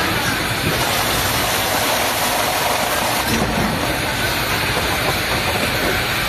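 Lozenge production and packaging machinery running, a steady mechanical hum with hiss.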